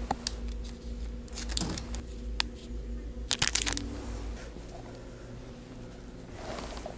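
Plastic packs of fishing lures crinkling and clicking on wire display pegs as they are handled, with a quick cluster of clicks about three and a half seconds in. A steady low hum runs underneath.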